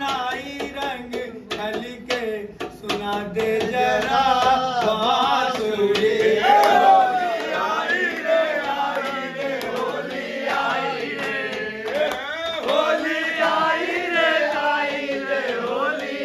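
A group of men singing a Holi folk song in chorus, loud and lively. A steel plate is struck as a beat, most clearly in the first few seconds.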